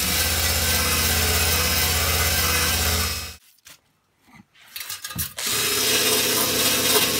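Cordless drill spinning a wire brush against the metal front mudguard of a vintage Motobécane motorcycle, stripping old paint and rust back to bare metal. It runs for about three seconds, stops for about two seconds with a few light handling knocks, then starts again.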